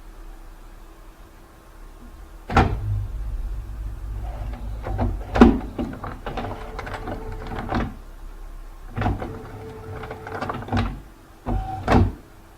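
Computer scanner running: its motor whirs in short steady runs between sharp mechanical clunks, the loudest about two and a half seconds in, halfway through and near the end.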